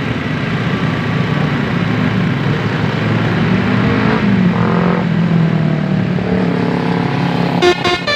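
A bus engine running under heavy road noise, rising a little in pitch about four seconds in. Near the end the bus's loud multi-tone 'basuri' telolet horn starts to sound.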